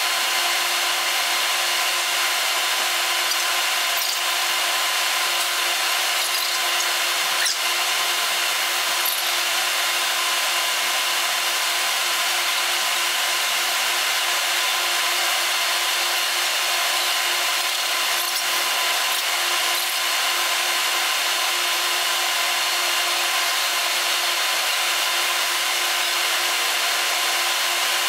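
Steady mechanical whir and hiss with several unchanging tones, like machinery running continuously.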